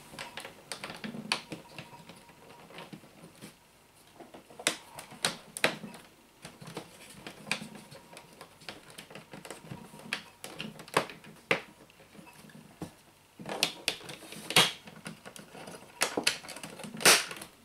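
Hard plastic tool case being handled: irregular plastic clicks, taps and knocks as hands work over it, with a few sharper clicks near the middle and end.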